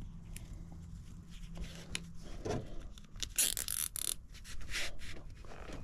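Plastic cable ties being handled and pulled tight, with a quick zipping rasp a little past the middle, amid light scraping and rubbing.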